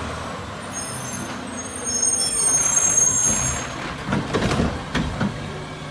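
Diesel front-loader garbage truck running as it drives along, with a thin high squeal from about one to four seconds in, then a few knocks and rattles.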